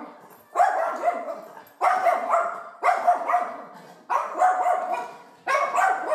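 A small dog barking at cats on a television screen: five sharp barks at an even pace, about one every second and a bit.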